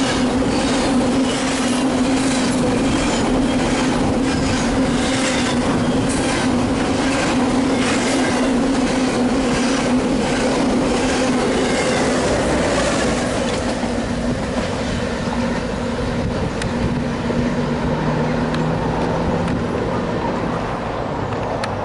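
Double-stack intermodal freight train rolling past at speed: a steady rumble with wheels clicking in a regular rhythm about twice a second. It grows quieter in the second half as the end of the train goes by.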